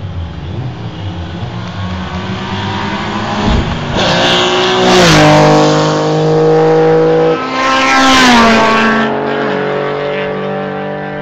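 Two cars passing at speed on a race track, one after the other: each engine note swells as the car approaches and drops sharply in pitch as it goes by, about four seconds in and again about eight seconds in. Between the passes the engine note holds steady at high revs.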